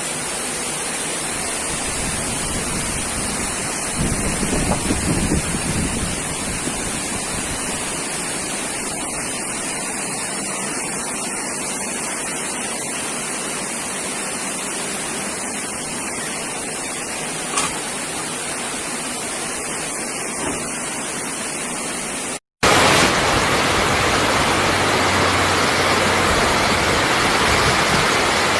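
Steady rushing noise of water, in two stretches joined by a cut about 22 seconds in; the second stretch is louder. A few louder bumps come about 4 to 6 seconds in.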